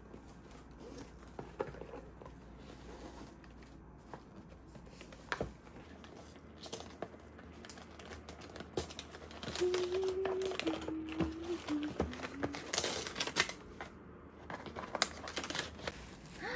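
Tissue paper and gift wrapping rustling and crinkling as a ribbon-tied gift box is unwrapped by hand, busier and louder in the second half.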